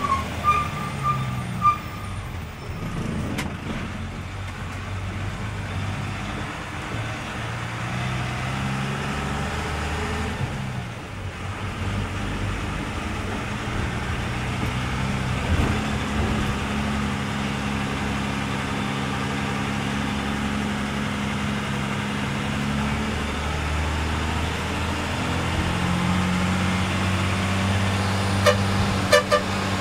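Vehicle engine heard from inside the cab on a winding descent, its pitch stepping up and down as the speed and gears change. A run of short horn beeps in the first couple of seconds and a few more near the end.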